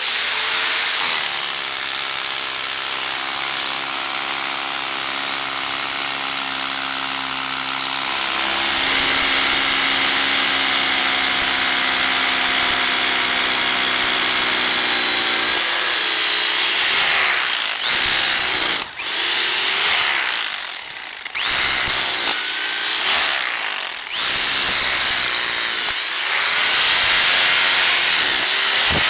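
DeWalt hammer drill with a long bit drilling into rocky ground: the motor runs steadily for about sixteen seconds, then stops and starts again several times in short runs, its pitch rising each time it picks up speed.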